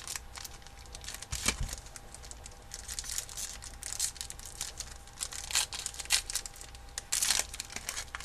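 Hockey cards and a foil card-pack wrapper being handled, crinkling and rustling in irregular bursts.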